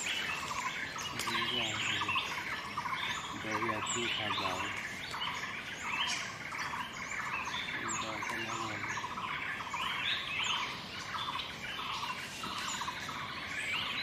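Many small birds chirping and calling at once: a dense, overlapping chorus of short chirps that goes on without a break.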